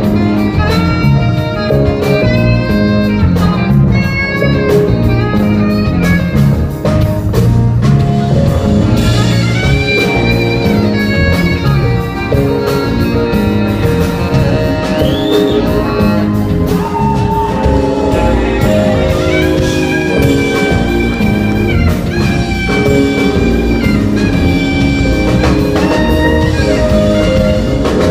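Live band playing an instrumental passage: drums and bass keep a steady groove while a lead instrument holds long notes, with one brief bend upward partway through.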